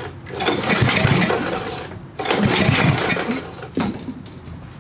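Briggs & Stratton 8 hp OHV snow blower engine being cranked over in two bursts without firing, with a compression gauge in the plug hole. The engine makes some compression but the gauge doesn't hold it. A single click follows near the end.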